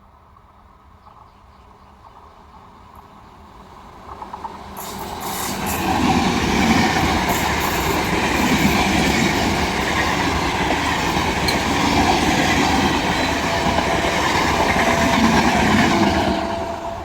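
A train approaching and passing close by, its wheels clattering over the rail joints. It builds up over the first few seconds, with a few sharp clicks about four seconds in, stays loud for about ten seconds, then drops off near the end.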